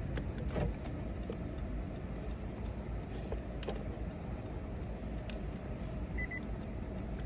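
Steady low hum inside a car, with a few light clicks and a short double electronic beep near the end.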